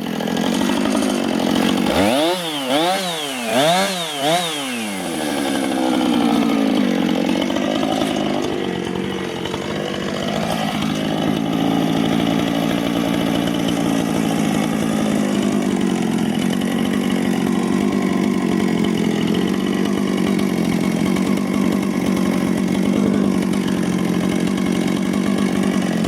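Chainsaw on a chainsaw mill cutting a cedar log. About two seconds in it revs up and down three times, then runs steadily under load in the cut, going through the wood "like butter".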